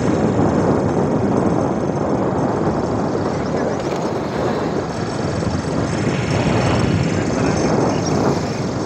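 Steady rushing noise of riding in a moving vehicle, with engine, road and wind noise blended together.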